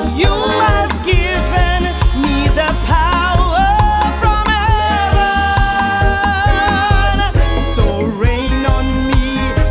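Gospel song music: a steady bass and beat under a lead melody that bends and wavers on held notes.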